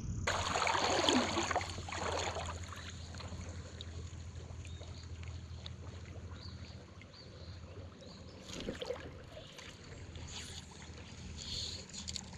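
River water splashing for a second or two near the start, then a steady wash of water with a few smaller splashes later on.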